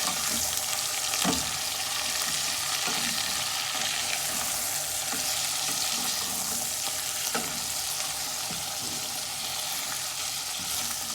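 Onions, curry leaves and garlic frying in hot oil in a pot, sizzling steadily, with a spoon knocking against the pot now and then as they are stirred.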